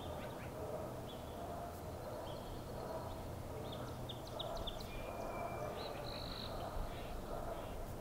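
Wild birds calling: a string of short, high chirps and whistles, with a briefly held whistle about two-thirds of the way through, over a steady low background noise.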